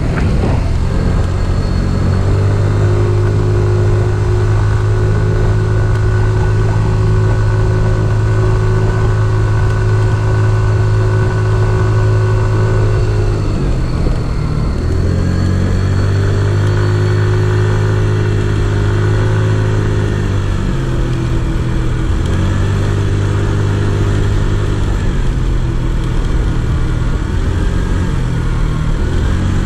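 Kymco Super Z 125 scooter engine running under way, a steady drone holding one pitch, easing off about halfway through and picking up again, then dipping briefly a few seconds later.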